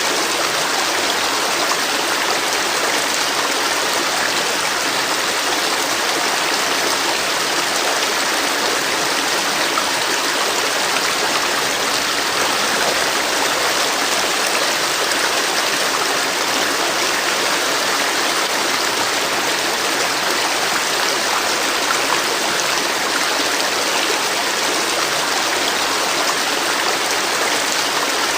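River water flowing steadily over rocks, a constant rushing with no change in level.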